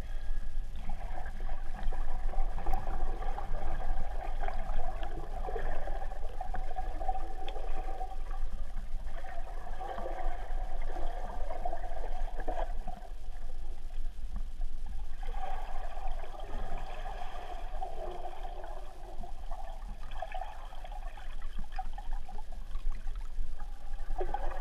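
Muffled underwater sound picked up by a submerged camera: a steady low rumble with gurgling water noise that comes and goes, dipping briefly about halfway through.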